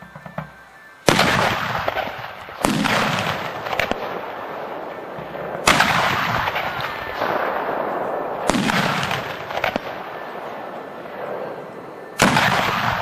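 Cannons firing one after another: five loud shots a few seconds apart, each followed by a long rolling echo.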